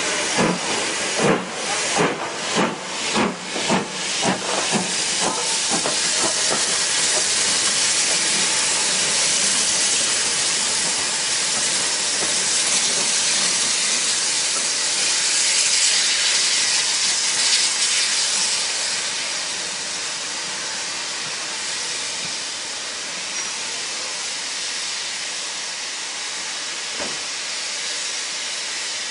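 Steam locomotive exhaust beats at about two a second, fading out over the first few seconds. A loud, steady hiss of escaping steam follows and eases off somewhat about two-thirds of the way through.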